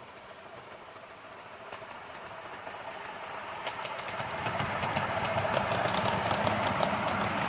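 Miniature railway train approaching and growing steadily louder, its wheels clicking rapidly over the rail joints from about halfway through.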